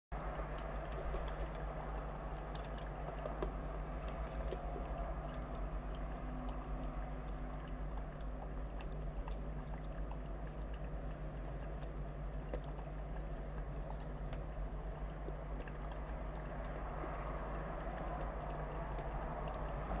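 Steady low rumble of distant city traffic, with faint scattered small clicks.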